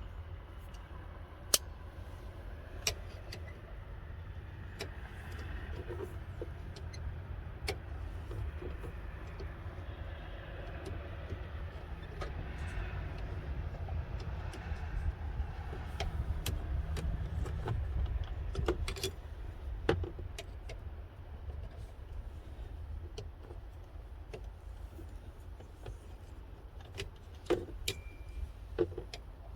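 Scattered light clicks and metallic taps of a hand driver and T25 bit working a tight screw on a pickup's steering column, over a steady low rumble.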